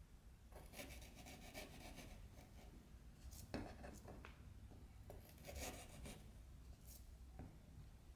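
Faint rasping scrapes of a peeler taking the skin off a daikon radish, coming in several short runs of quick strokes with a few sharp clicks between them.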